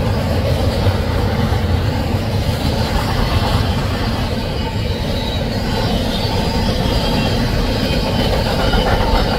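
Steady rumble of a freight train's intermodal well cars rolling past, their steel wheels running on the rails.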